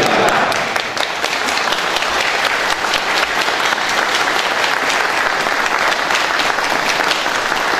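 A large crowd applauding, many people clapping their hands at once in a dense, even patter.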